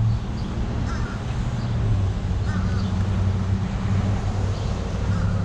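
A crow cawing a few short calls, about a second in, around two and a half seconds, and again near the end, over a steady low hum.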